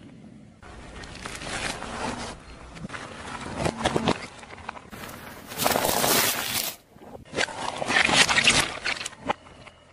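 Car tyre rolling slowly over soft, squishy objects and crushing them on asphalt: squashing and crackling with gritty tyre-on-road noise. It comes as about four short clips that start and stop abruptly, the loudest near the middle and about two seconds from the end.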